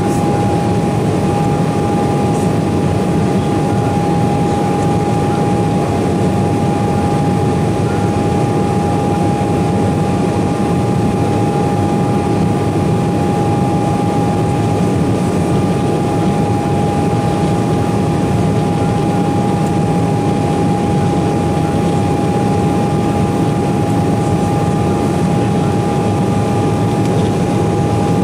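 Inside the cabin of an Embraer 195 climbing after takeoff: a steady loud rush from its GE CF34-10E turbofans and the airflow, with a constant high whine from the engine fans. It holds even with no change in pitch or level.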